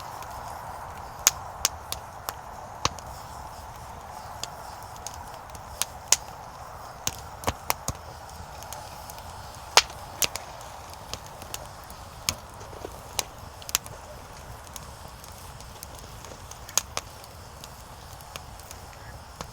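Burning firewood crackling: sharp, irregular pops and snaps, a few much louder than the rest, over a steady soft hiss of the flames.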